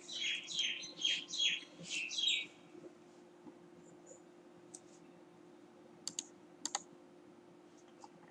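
A bird chirping a fast run of about eight high, falling notes over the first two and a half seconds, then a few faint sharp clicks later on.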